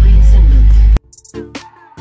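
A loud, steady low rumble inside an airliner cabin, with music over it, cuts off abruptly about a second in. After that comes background electronic music with a beat of repeated drum hits.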